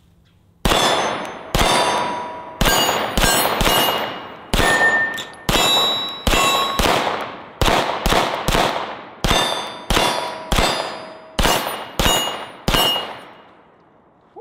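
A SAR9 X 9mm pistol fired in a string of about eighteen shots at an uneven pace over some twelve seconds. Steel targets ring with short clear tones after many of the shots.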